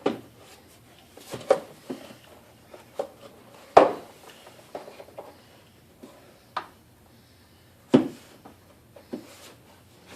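About nine separate clicks and knocks at uneven spacing, the loudest about four and eight seconds in: hand tools and engine parts being handled as the throttle body and intake parts are refitted.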